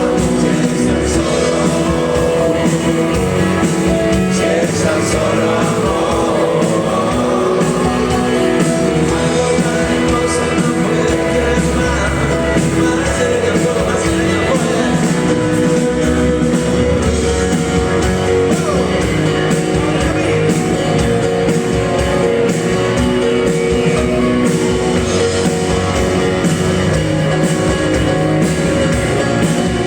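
Rock band playing a song live: electric guitars and drums at a steady loudness, with some singing over them.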